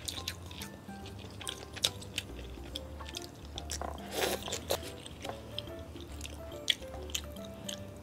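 Close-miked chewing and wet mouth sounds of a person eating, with small crisp clicks, over background music with a steady bass line. About four seconds in, a louder, longer bite as a mouthful of cucumber kimchi goes in.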